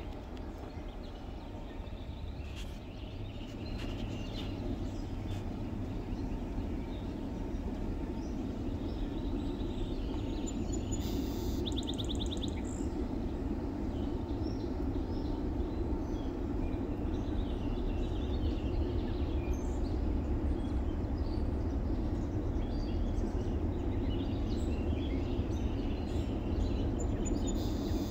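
Low, steady rumble of distant diesel locomotives on an approaching freight train, growing gradually louder, with songbirds chirping and two short trills over it.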